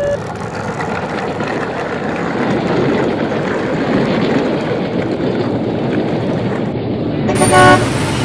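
Steady rumbling, rushing noise of a train passing, swelling a little in the middle. About seven and a half seconds in, a short, loud tone with several pitches at once cuts in.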